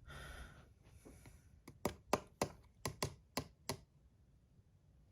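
Keys being typed: a quick, uneven run of about eight sharp clicks lasting roughly two seconds, entering text to be translated.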